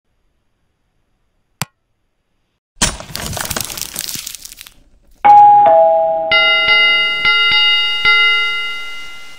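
Sound effects for a subscribe-button animation. A single click, then a crackling, shattering swish as the logo breaks apart, then a two-note ding-dong chime. After that a bell-like notification chime rings several times over and fades.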